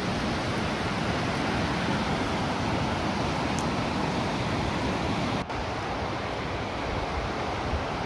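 Steady rushing of whitewater rapids on the Spokane River, an even hiss with a momentary break about five and a half seconds in.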